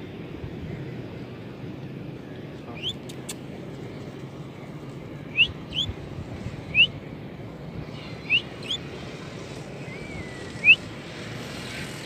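Budgerigar giving about seven short, rising chirps, spaced irregularly a second or two apart, over a steady low rumble of wind noise.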